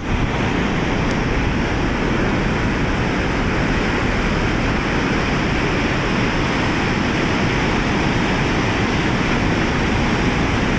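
Ocean surf breaking and washing over a boulder shore, a steady rush of water without pause.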